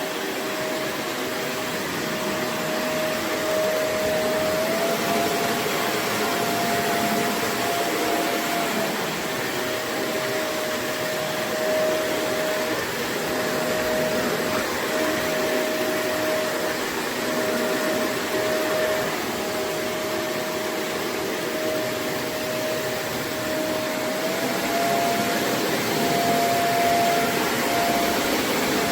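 Vacuum cleaner running steadily with a motor whine, its pitch stepping up slightly twice as the load changes.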